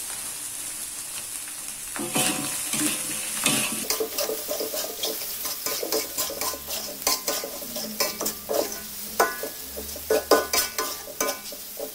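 Stir-frying in a hot metal wok: vegetables sizzling with a steady hiss, then from about two seconds in a metal spatula scraping and clanking against the wok over and over as cabbage, bean sprouts and meatballs are tossed.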